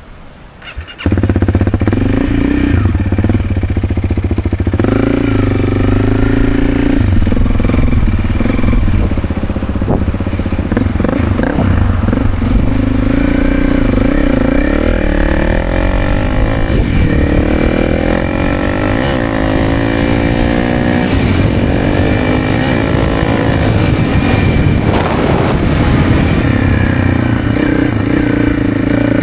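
Honda CRF300's single-cylinder four-stroke engine running as the bike is ridden, its pitch rising and falling with the throttle. It comes in abruptly about a second in.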